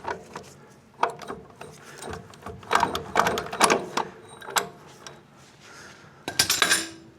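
Hand ratchet clicking in short bursts as it turns the forcing screw of a ball joint press, pressing an old ball joint out of its control arm.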